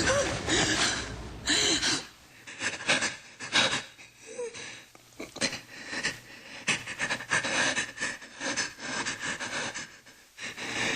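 A person panting hard in short, ragged breaths, with a brief whimpering sound about four seconds in.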